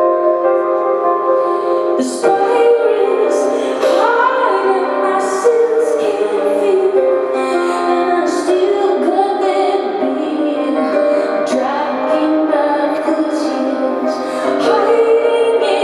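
Live female vocal singing over sustained held chords of accompaniment. The voice comes in about two seconds in.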